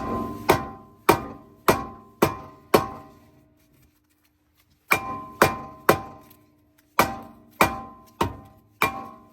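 Hammer striking metal in steady blows about twice a second, each with a short metallic ring: a run of six, a pause of about two seconds, then another run of about eight.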